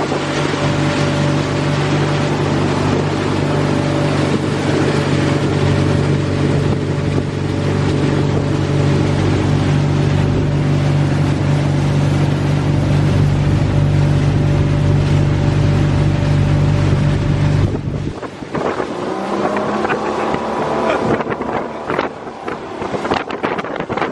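Boat engine running steadily at cruising speed, a loud, even drone with water and wind noise; about eighteen seconds in it cuts off abruptly to quieter, gusty wind noise.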